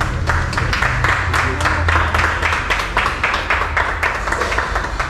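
A small group of people clapping, a quick, uneven run of hand claps that thins out near the end.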